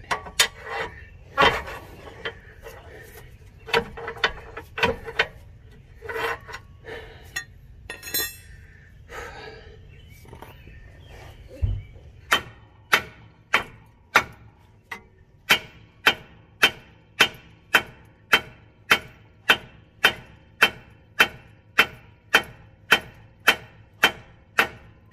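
Hammer blows on the steel steering knuckle and ball joint of a Subaru Legacy, which is held under tension by a come-along, to break the seized lower ball joint loose. The strikes ring sharply. In the first half they come irregularly, and about halfway through they settle into a steady run of nearly two blows a second.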